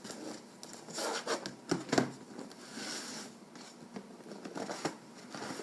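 Slime kit packaging being handled and opened: irregular rubbing and scraping, with a couple of sharp knocks about two seconds in.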